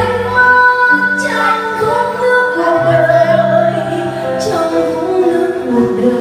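A woman singing a slow Vietnamese ballad live into a microphone, over a keyboard accompaniment of sustained chords, with long held notes.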